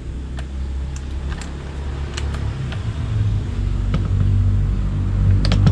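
A low rumble that grows steadily louder, with a few light plastic clicks and knocks as a laser level is pressed and fitted onto a tripod mount.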